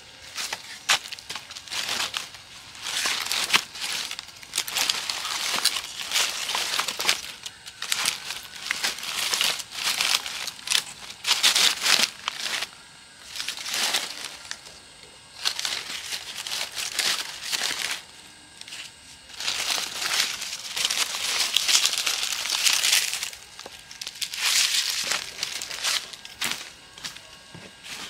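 Dry bamboo leaves crackling and rustling underfoot and under hand as split sticks of firewood are picked up and stacked, with light clicks of wood on wood. It comes in bursts with short pauses.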